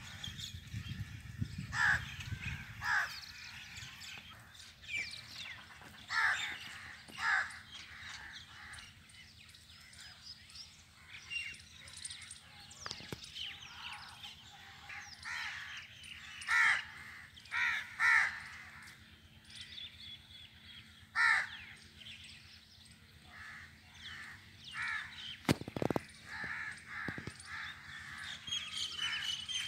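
Crows cawing over and over: short, harsh calls, singly and in quick pairs, every second or two.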